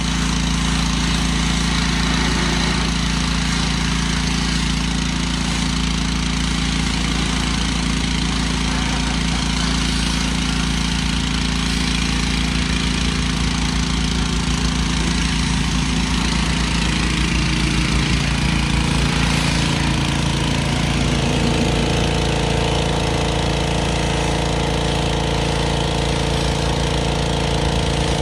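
Pressure washer running steadily, its wand spraying water onto a foam-covered car body: a hiss of spray over the machine's steady hum. The hum's note changes about twenty seconds in.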